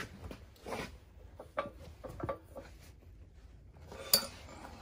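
Handling noises from a powder-coated steel winch mounting plate being turned over in the hands: scattered light knocks and rubbing, with one sharp click about four seconds in.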